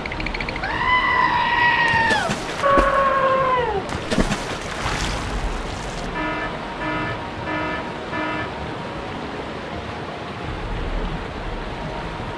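Steady rushing-water background with added sound effects on top: two falling cartoon-style tones in the first four seconds, a burst of crashing noise around four seconds in, then four short evenly spaced beeps.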